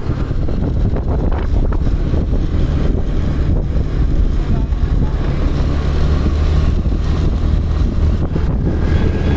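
Wind buffeting the microphone over a moving vehicle's steady low rumble, which grows stronger about halfway through.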